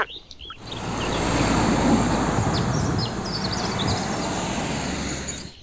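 Heavy tanker truck driving along a road: engine and tyre noise that builds over the first two seconds, holds steady, then cuts off suddenly near the end.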